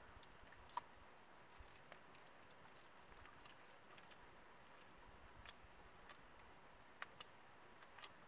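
Near silence with a few faint, sharp clicks scattered through it.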